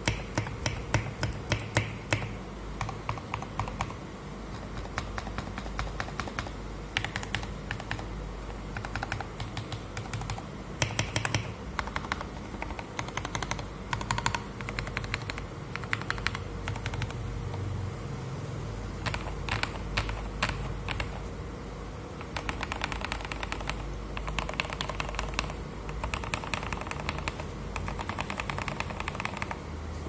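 Typing on a Tester68 mechanical keyboard fitted with retooled Cherry MX Black linear switches lubed with Krytox 205g0, lubed stabilizers and XDA keycaps: runs of quick keystrokes, with a brief lull a little past halfway.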